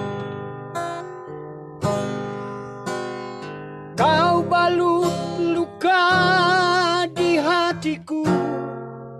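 Acoustic guitar strummed slowly, one chord at a time, each left to ring and fade. About four seconds in, an elderly man's voice comes in over the guitar, singing long held notes with a wide vibrato.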